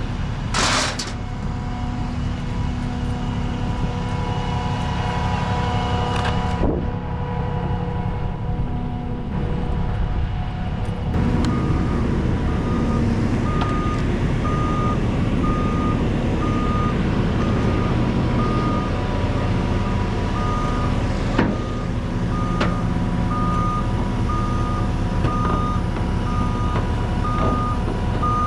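Diesel engine running steadily, with a short hiss about a second in; from about 11 seconds on a heavy-equipment backup alarm beeps over it, about one and a half beeps a second.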